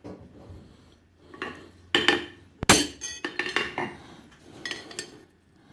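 Metal-on-metal clanks and clinks of steel smithing tools being handled: a handful of irregular knocks, the loudest about halfway through.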